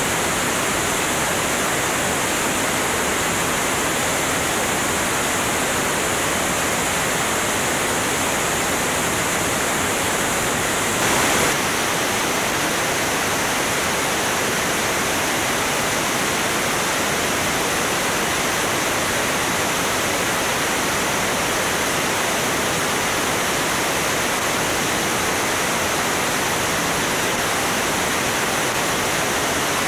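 Steady rushing wind noise from the airstream at about 170 mph striking a camera mounted outside, under the wing of a Cessna 205 in flight, with a brief louder gust about eleven seconds in.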